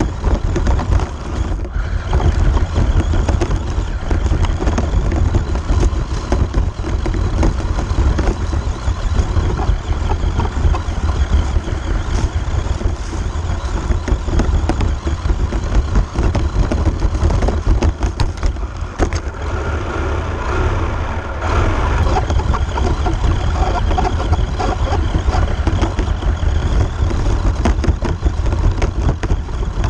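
Radio-controlled car driving over bumpy dirt and grass, heard from a camera mounted on the car: a constant deep rumble with rapid rattles and knocks from the chassis bouncing over rough ground.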